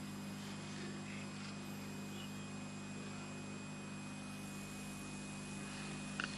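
Steady low electrical mains hum and faint hiss from the sound system, with a thin high tone above it. A brief soft click comes near the end.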